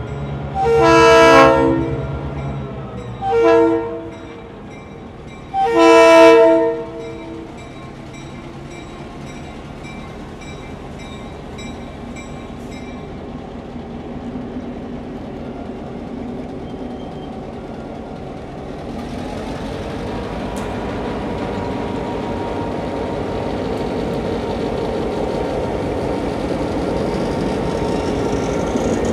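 EMD GP9 diesel locomotive's horn sounding a grade-crossing warning: three blasts, long, short, long. After the blasts, the locomotive's diesel engine and wheels rumble steadily, growing louder as it rolls up to and past the crossing.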